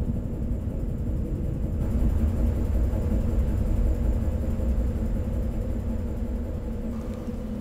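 Steady deep rumble with a low hum beneath it, and a wash of hiss joining about two seconds in: the ambient sound bed of a science-fiction film.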